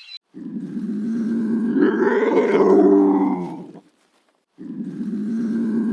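A large farm animal calling: one long, low call of about three and a half seconds, then a short break, and a second call starting near the end.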